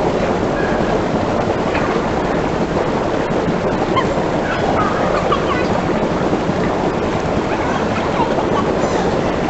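Hot tub jets churning the water: a loud, steady rush of bubbling water.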